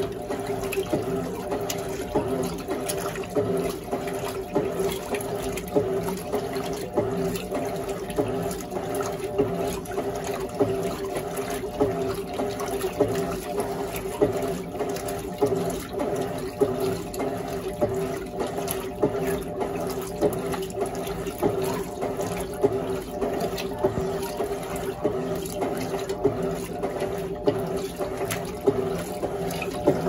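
Electrolux Turbo Limpeza 10.2 kg top-loading washing machine agitating its load in the rinse water: water sloshing and splashing around the agitator over a steady motor hum.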